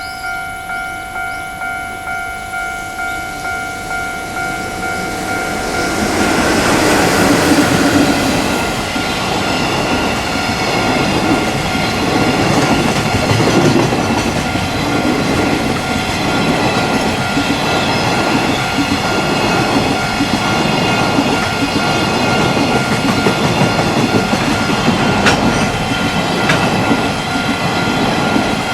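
Japanese level-crossing warning bell dinging about twice a second. About six seconds in, a long train passes over the crossing and its steady noise runs on, with the bell still faintly under it. The train is most likely the container freight hauled by an EF66-100 electric locomotive.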